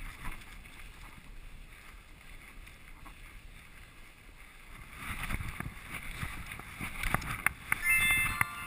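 Skis sliding over snow with a steady swish. About five seconds in it turns louder and scratchier, with crunching and scraping as the skis and poles work the snow, and some wind on the microphone.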